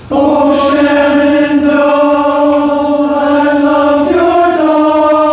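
Men's barbershop chorus singing a cappella in four-part harmony, holding one long chord that moves to a new chord about four seconds in.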